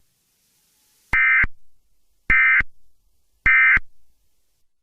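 Three short bursts of EAS digital data tones about a second apart: the SAME end-of-message code, which marks the close of an alert broadcast.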